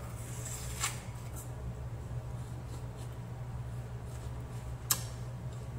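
A bite into a crisp apple about a second in, then chewing, with a sharp click near the end, over a steady low hum.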